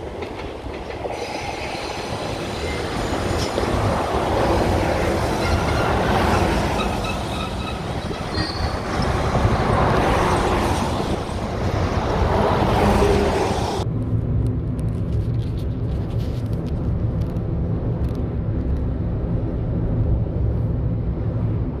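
A diesel railcar passes, its engine and wheels on the rails growing louder in two swells, with faint high wheel squeal. About fourteen seconds in, the sound cuts off suddenly to a steady low vehicle drone.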